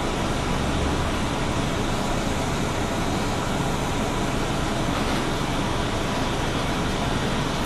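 Orion V CNG transit bus running steadily, its Detroit Diesel Series 50G four-cylinder natural-gas engine humming under an even rush of road noise.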